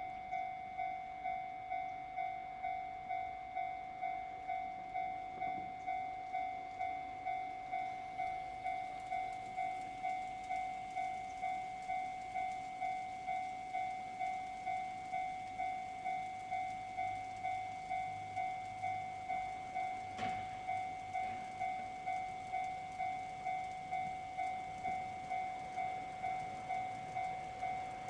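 Japanese level-crossing electronic warning bell starts suddenly and rings steadily, a two-tone ding repeating nearly twice a second. It is the signal that a train is approaching the crossing.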